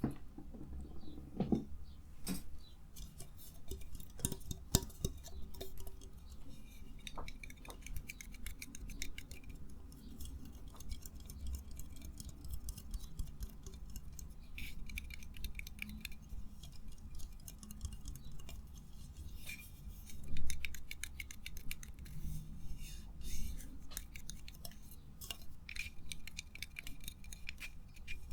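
Close-miked stream of small clicks, ticks and scraping from hard objects being handled, with a louder burst about 20 seconds in.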